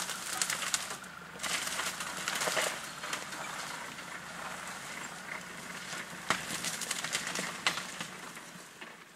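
Male lion feeding on a buffalo carcass: crackly tearing, crunching and rasping at meat and bone, with frequent sharp clicks. The sounds fade near the end.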